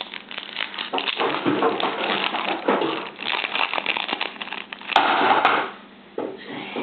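Foil booster-pack wrapper crinkling and crackling as it is torn open and handled, with a sharp click about five seconds in.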